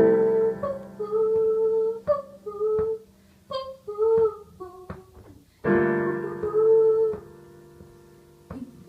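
A woman singing live, a slow melody with held notes, over keyboard chords struck at the start and again about two-thirds of the way through.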